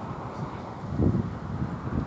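Wind buffeting the microphone outdoors: low rumbling gusts, the strongest about a second in.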